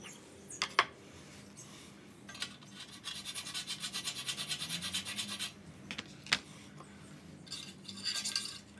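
Steel vernier caliper jaw scratching on an aluminium sliding-door track in rapid, even strokes, scribing a mark on the metal. There are a few sharp metal clicks as the tool touches the track.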